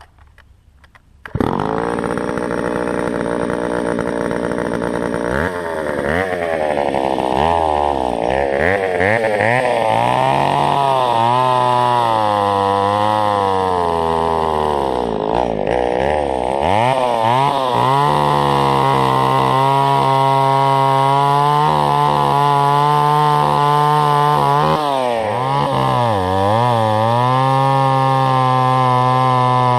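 Small two-stroke Echo chainsaw starting up suddenly about a second in, then revving and bogging down again and again as it cuts into hard wood, the pitch rising and falling with each cut. The chain is dull, which makes the cutting slow.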